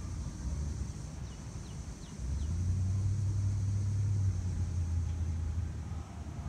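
A low rumble that swells about two seconds in and eases near the end, with four short high falling chirps a little after the first second.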